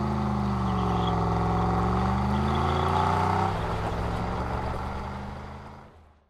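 Car engine under hard throttle, its note dipping and climbing again. About three and a half seconds in the throttle is lifted, and the note drops and fades out until it cuts off abruptly near the end.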